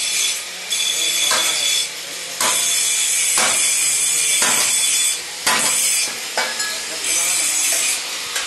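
Power tool grinding against a surface: a loud, high hiss that runs in stretches of one to three seconds with short breaks between them.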